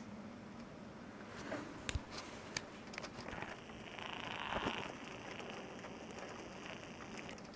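Faint patter and crackle of snow pellets falling on a glass greenhouse roof, with a few sharp clicks about two seconds in and a brief louder hiss around four to five seconds in.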